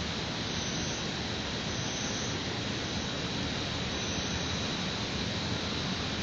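Steady, even rushing background noise with no distinct events: outdoor city and wind ambience picked up by an open-air webcam microphone.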